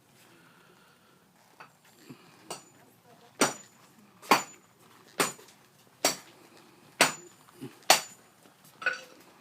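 Hammer driving a nail into wood framing: a few light setting taps, then seven steady, full blows about one a second, each with a short metallic ring.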